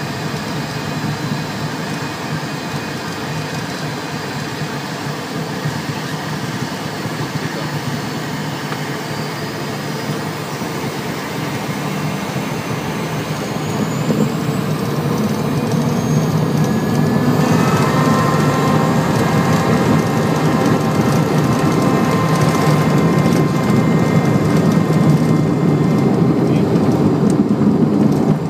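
Cessna Citation II's twin Pratt & Whitney Canada JT15D turbofans heard from the cockpit, spooling up to takeoff power with a rising whine. They grow louder about halfway through, then run steadily as the jet rolls down the gravel runway with a heavy rushing rumble.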